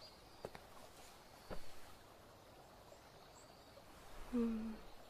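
Faint rural evening ambience: a few high bird chirps at the start over a soft steady background, two light taps about half a second and a second and a half in, and a brief low hum near the end.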